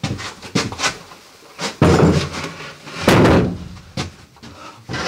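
A large wooden wall-lining board knocking and scraping against the narrowboat's wall battens as it is lifted out by hand and stood down: several sharp wooden knocks and two longer scraping sounds, about two and three seconds in.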